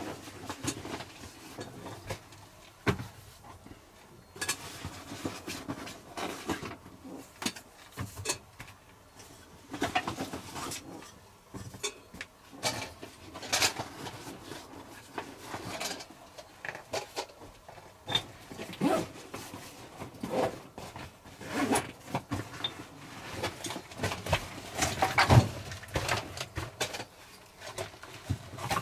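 Camping gear being set down on a felt-covered log bed: scattered light knocks, clinks and rustles from a titanium pot, a wooden kuksa cup and small containers, with a louder clatter near the end.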